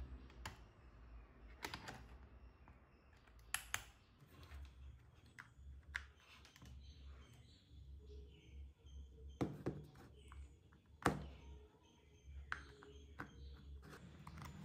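Scattered light plastic clicks and knocks from handling, as a charger adapter is pushed into a power strip and its DC barrel plug is fitted into a cordless drill's battery pack.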